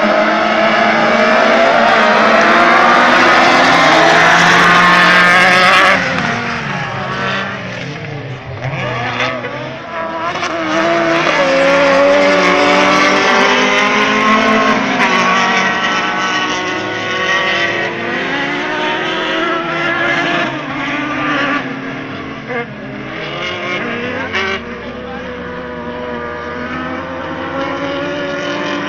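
Several autocross racing buggies' engines revving hard together, the pitch of each rising and falling through gear changes. The engines are loudest for the first six seconds, then a bit fainter as the pack races around the dirt track.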